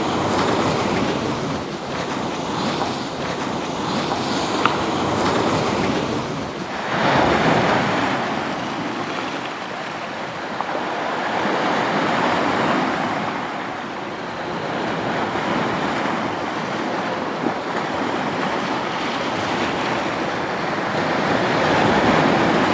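Waves breaking and washing over a boulder-and-pebble shore, the surf swelling and easing in slow surges, loudest about seven seconds in and again near the end.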